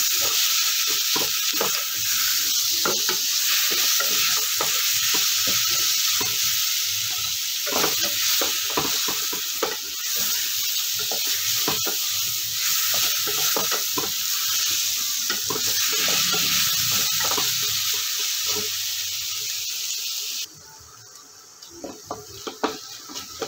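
Chopped tomatoes, onion and ginger-garlic paste frying in oil in a stainless steel pot, with a steady sizzle and the repeated scrape and knock of a wooden spatula stirring them as they soften. The sizzle cuts off suddenly near the end, leaving only a few spatula knocks.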